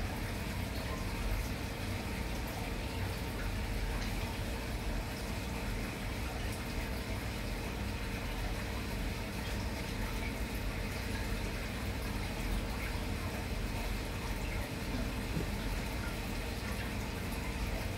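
Steady bubbling and running of aquarium water, with a faint steady hum underneath.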